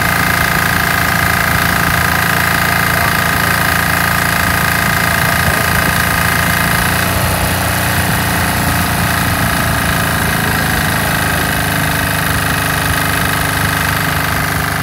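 MEP-831A generator's single-cylinder diesel engine running steadily without surging, its speed held by an aftermarket Kurt Klopp governor controller. A steady high whine heard with it stops about seven seconds in while the engine runs on.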